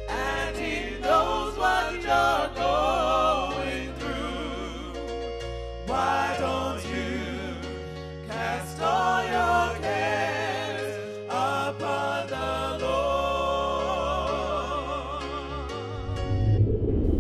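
Gospel song: a sung vocal with heavy vibrato over sustained bass and keyboard chords.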